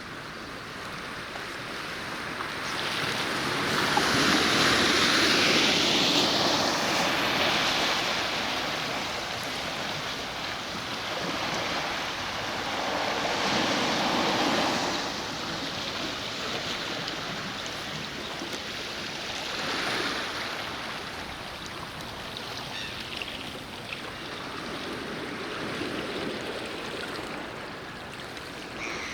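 Sea waves breaking and washing ashore in slow swells. The biggest comes about four seconds in, with smaller ones near the middle and about two-thirds of the way through.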